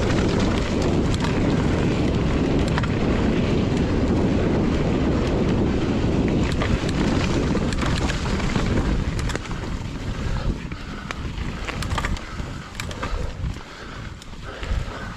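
Mountain bike riding over a dirt trail: wind buffeting the camera microphone and tyres rumbling, with scattered rattles and clicks. The rumble drops about ten seconds in, leaving quieter, patchier rolling noise and clicks.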